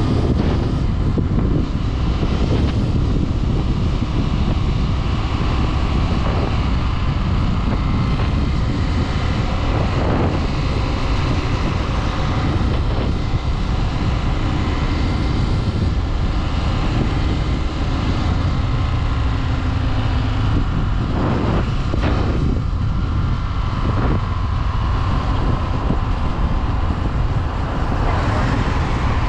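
Small-displacement motorcycle running steadily while riding, its engine under a heavy wind rumble on the microphone.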